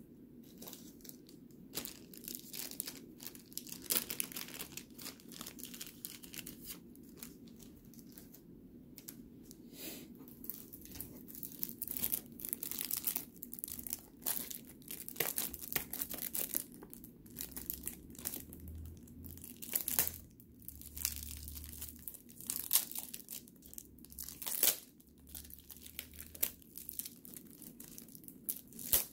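Foil trading-card pack wrapper being torn open and crinkled by hand: a long run of irregular crackling rustles, sparse at first and busier and louder from about ten seconds in.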